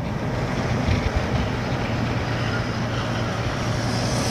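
Steady engine hum and road noise of a moving vehicle, heard from inside the vehicle, with a rushing noise growing louder near the end.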